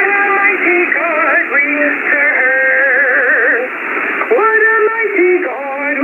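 Singing received over a radio, which sounds like a Christian song: a thin, narrow, tinny sound, the voice wavering in pitch on long held notes.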